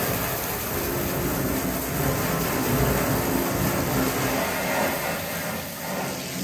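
Garden hose jet spraying water into and over a fuel tank and splashing onto concrete, a steady rushing hiss, as the tank is rinsed out to flush metal shavings from it.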